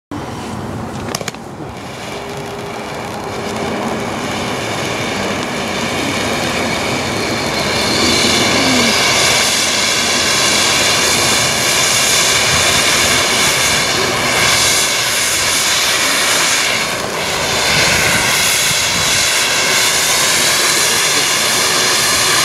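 Nico Silver Fan ground firework fountain burning: a steady, loud hissing rush of sparks with a sharp crackle about a second in, swelling louder over the first several seconds and then holding strong.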